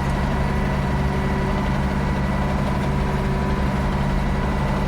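Ford 9700 tractor's six-cylinder diesel engine running steadily while driving along a road, with a continuous even drone.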